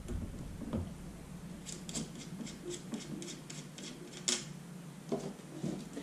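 Hands handling an underwater camera housing as a plug is unscrewed from its connector port: small rubbing sounds and a run of faint ticks, with one sharper click about four seconds in.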